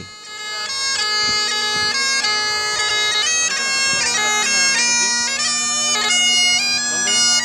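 Scottish bagpipe playing a melody on the chanter over a steady drone.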